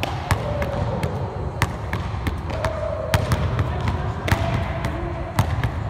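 Two basketballs being dribbled on a hardwood gym floor, a series of sharp, irregularly spaced bounces as the players work crossover, between-the-legs and behind-the-back dribbles.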